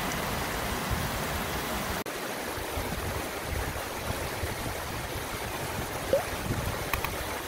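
Steady rush of a shallow stream running over a low weir and stones, close by.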